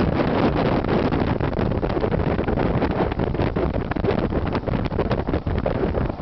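Wind buffeting the microphone at an open car window, mixed with tyre and road noise from the moving car; the rush flutters unevenly in level.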